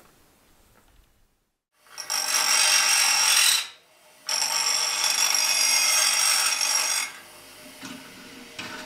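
Bench grinder with a small metal part held against its wheel: two loud grinding passes, the first about a second and a half, the second nearly three seconds, with a short break between. Near the end a few light clicks of metal parts being handled.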